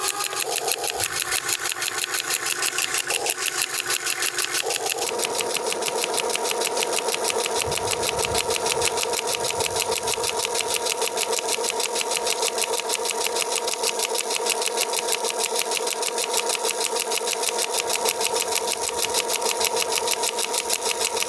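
Concrete breaker attachment on a Huina 1580 RC excavator hammering rapidly and steadily, with the whine of its drive motor holding steady from about five seconds in.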